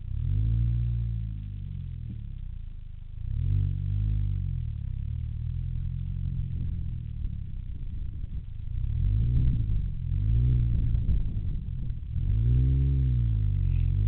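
Mini Cooper engine running as the car moves off, its pitch rising and falling over and over, heard from a camera mounted outside the car low beside the front wheel. It grows louder near the end.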